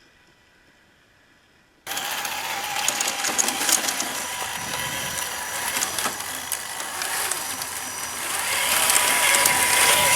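A radio-controlled model's electric motor and plastic geartrain running, with a dense mechanical whir full of sharp clicks and crackles. It starts suddenly about two seconds in and grows louder near the end.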